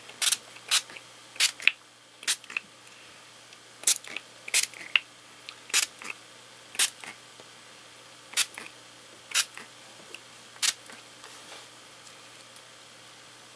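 Small pump spray bottle of Brutus Monroe Surface spray ink spritzed onto ceramic tiles: about a dozen short hissing puffs at irregular intervals.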